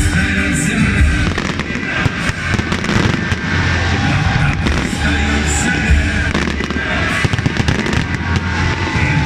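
Fireworks display going off: a dense run of bangs and crackling, with loud music with a steady beat playing alongside.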